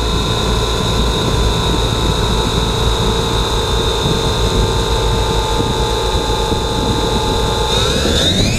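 A 3DR quadcopter's electric motors and propellers spin at idle with a steady whine. Near the end they spin up in a rising whine as it throttles up for takeoff.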